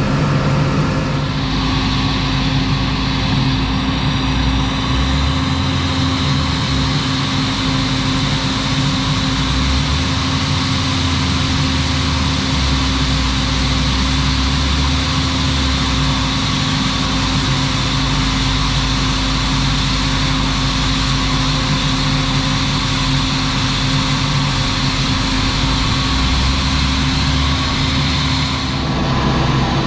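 Heavy farm machinery running steadily: a low engine drone with a constant high whine over it.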